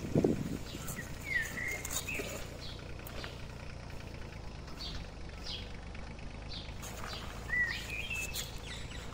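Small birds chirping and calling repeatedly, with a few louder gliding calls about a second in and again near the end. A short thump right at the start.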